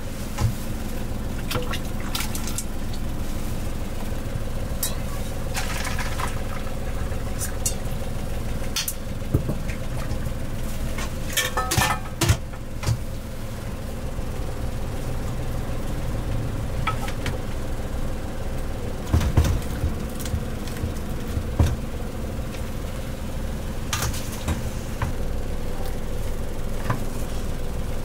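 Stainless steel pots, lids, a noodle strainer and a bowl clinking and knocking now and then, in small clusters, as a bowl of ramen is put together, over a steady low mechanical hum with a held tone.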